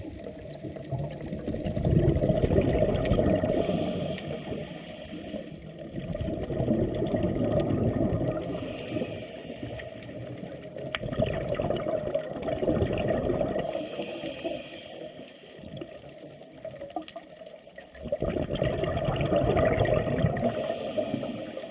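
Sea water sloshing and rushing, swelling and fading in surges every few seconds.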